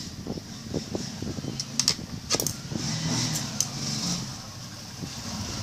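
Sharp plastic clicks and snaps from a thin screwdriver prying the screen bezel off a Toshiba Satellite C640 laptop, bunched around two seconds in with a couple more later, over a steady background engine rumble.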